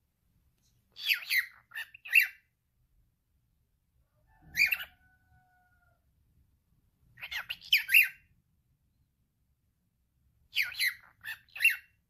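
Male cockatiel talking: it repeats the same short, raspy mimicked phrase three times, with a single call about four seconds in that trails off into a faint whistled note.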